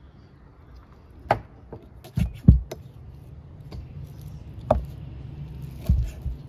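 Knife cutting raw beef on a thick wooden log chopping board: a handful of sharp knocks and dull thuds as the blade and meat hit the wood, the loudest about two and a half seconds in, over a low steady hum.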